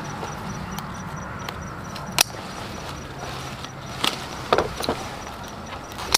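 Scissors snipping the stems of green bell peppers: a few sharp clicks a couple of seconds apart, over a steady low rumble.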